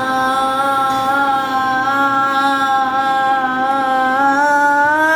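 A voice holding one long vowel on a single breath, the word 'khana' drawn out in a slow-speech breathing exercise for fast talkers. The pitch stays steady and rises slightly near the end.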